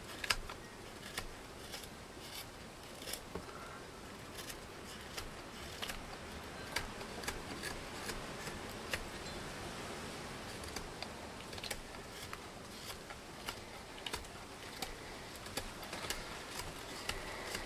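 Schrade Frontier SCHF42D knife carving dry softwood, each cut taking off a shaving with a small, sharp click, coming irregularly one after another.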